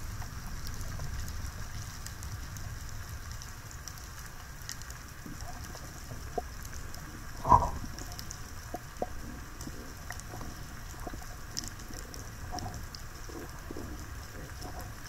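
Underwater ambience heard through a diving camera's housing: a low water rumble with faint scattered clicks and crackle, and one louder knock about halfway through.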